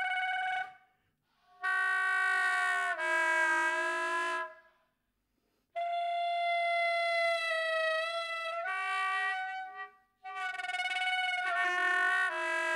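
Soprano saxophone playing long held notes in short phrases, broken by brief silences about a second in, about five seconds in and near ten seconds. Some notes carry a second, lower tone sounding at the same time, and the pitch steps down within phrases.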